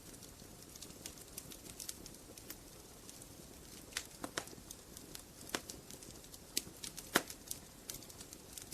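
Wood fire burning in a fireplace, logs crackling with irregular sharp pops over a low steady hiss. The pops come more often from about halfway through, and the loudest comes near the end.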